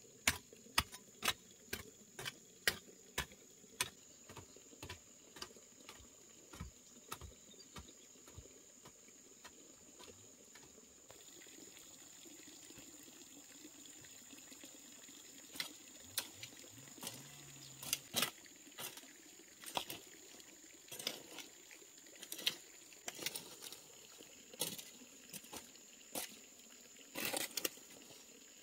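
A run of sharp clicks or knocks, quick and fairly regular at first, then sparser and irregular, over a faint steady high-pitched tone.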